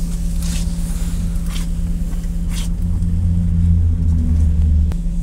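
Interior of a MAZ-203 city bus under way: the engine runs with a steady low hum, its drone growing heavier from about three seconds in and then dropping off suddenly near the end.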